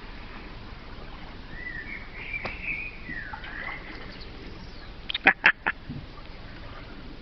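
Ducks quacking: a wavering higher call in the first half, then a quick run of four loud quacks about five seconds in.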